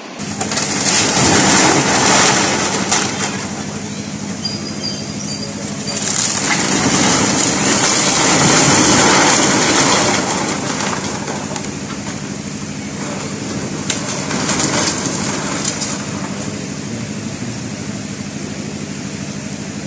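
Loud rushing noise of a house collapsing into fast-flowing floodwater. It swells twice, first in the opening seconds and again midway, over a faint steady low hum.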